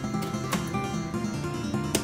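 Background instrumental music with plucked acoustic guitar. Two sharp knocks cut through it, one about half a second in and a louder one near the end.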